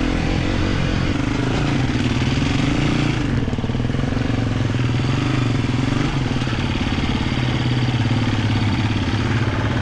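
Husqvarna FE250 single-cylinder four-stroke enduro bike engine running at low, fairly steady revs, with small changes in revs a few seconds in and again around the middle.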